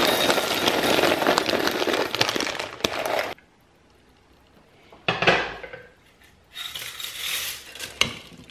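Dry egg noodles poured from a plastic bag into a glass measuring cup: a dense rattle of pasta on glass with the bag crinkling, stopping after about three seconds. After a pause there is a clatter, then the noodles are stirred with a spoon in the slow cooker's pot, scraping with a few clicks.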